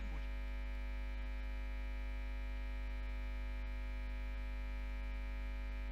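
Steady electrical mains hum with a buzz of many higher steady tones over it, unchanging throughout, from the room's sound system.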